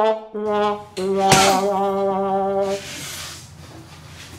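A 'sad trombone' failure sound effect: held brass notes stepping down in pitch, the last and lowest held for nearly two seconds. A sharp knock comes partway through that last note.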